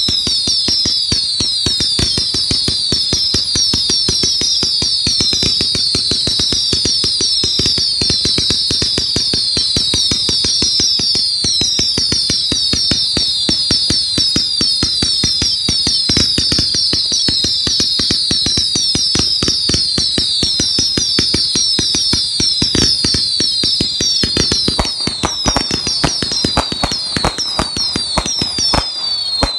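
A firework going off continuously: a dense stream of crackling pops with many overlapping whistles, each falling in pitch. It stops abruptly just before the end.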